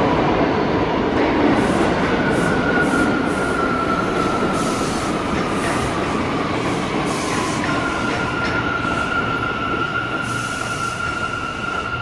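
New York City Subway train running through the station with a loud rumble from the wheels and rails. A high steady squeal comes in about two seconds in and jumps up in pitch near eight seconds, and the overall sound eases off slightly towards the end.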